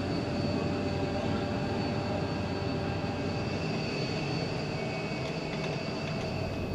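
Gas turbine running steadily: a high whine in several tones over a low hum and rumble.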